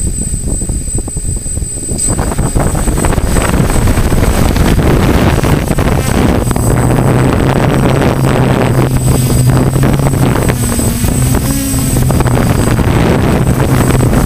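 DJI Flamewheel F550 hexacopter's electric motors and propellers spinning up about two seconds in as it lifts off and climbs. This is a loud whir heard from the aircraft itself, which settles into a steady low hum partway through.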